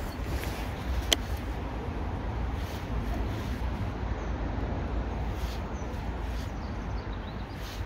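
Steady low rumble of wind on the microphone, with a single sharp click about a second in.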